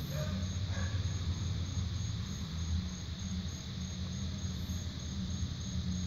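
Distant music from a neighbour's house, muffled so that mostly its low bass carries as a shifting rumble. A steady chorus of crickets chirps high above it in even pulses.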